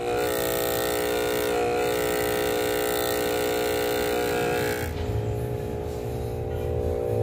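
AP-226 aquarium diaphragm air pump running loud and noisy with a buzzing rattle, the fault that stopped it making bubbles. About five seconds in it cuts to the same pump repaired, running with a quieter, lower hum.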